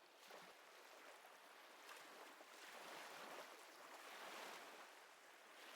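Faint ocean-wave ambience under the narration: soft surf washing in and out, swelling and receding several times.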